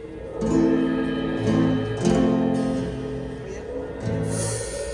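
Music: a few sustained chords played on an instrument, the chord changing about four times.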